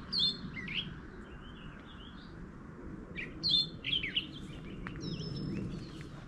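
A songbird singing two quick phrases of sliding, falling notes about three seconds apart, with fainter bird notes between them, over a low steady background rumble.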